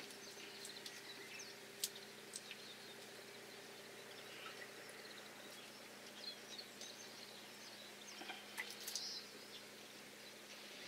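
Quiet handling sounds of a nerve-spiking wire being worked into a red sea bream's head and spine: faint scrapes and a couple of sharp small clicks, over a steady low hum.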